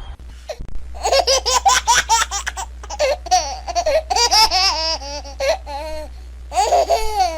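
High-pitched laughter in quick pulsed runs, starting about a second in, pausing briefly, then returning near the end, over a steady low hum.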